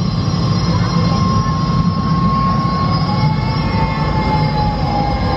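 Steady mechanical hum with thin, high whining tones, one sliding slowly down in pitch, from the themed sci-fi machinery soundscape of the droid workshop area.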